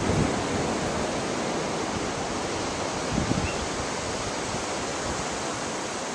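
Steady rush of ocean surf on a beach, with wind buffeting the microphone in low gusts near the start and again about three seconds in.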